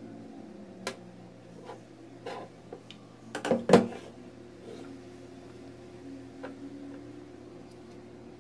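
Pressure-cooker handle parts, plastic and metal pieces, being picked up and set down on a tabletop: a few separate light clicks and taps, with a louder cluster of knocks a little past the middle.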